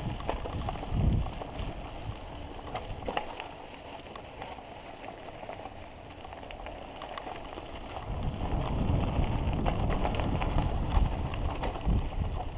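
Mountain bike rolling fast downhill over loose dirt and gravel: a steady crackle of grit under the tyres with scattered clicks and rattles from the bike, and a thump about a second in. From about eight seconds in a louder low rumble of wind on the camera's microphone joins it.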